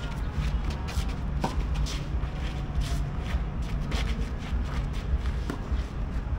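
Tennis shoes scuffing and stepping on a clay court in short, scattered scrapes over a steady low rumble.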